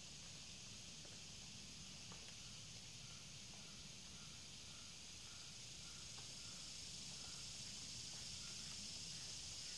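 Quiet outdoor ambience: a steady, high insect hiss that swells slightly toward the end. From about three seconds in, a faint short call repeats about twice a second for several seconds, with a couple of faint ticks.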